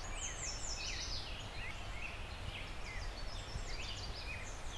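Several songbirds singing at once, quick repeated chirping notes that sweep down in pitch and overlap one another, over a low steady background rumble.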